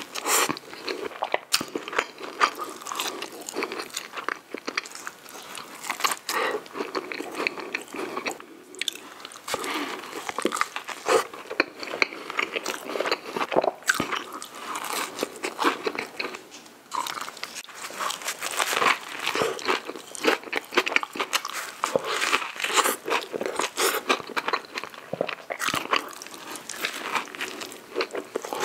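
A man biting into and chewing a cheeseburger and a fried chicken nugget: irregular crunching and chewing with many sharp clicks.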